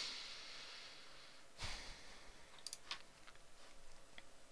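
A soft breath fading out close to the microphone, then a short breathy noise and a few faint clicks.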